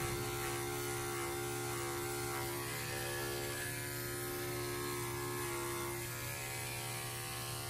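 Electric pet hair clippers running with a steady hum, clipping a dog's fur.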